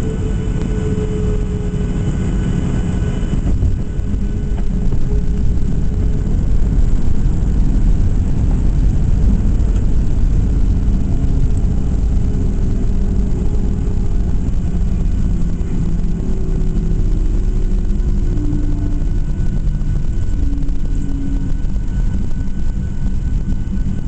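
Cabin noise of a Boeing 737-700 during landing: a loud, steady low rumble of the CFM56 engines and airframe, with an engine tone that slowly falls in pitch. About three and a half seconds in, a high whistle drops out and the rumble grows a little louder.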